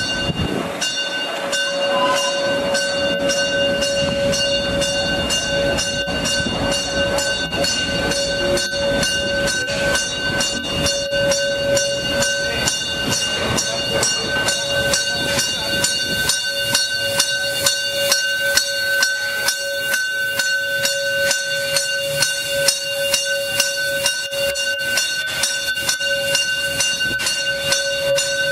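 Molli narrow-gauge steam tank locomotive 99 331 running slowly around its train: a steady high whine and hiss, with a regular beating that grows quicker toward the end.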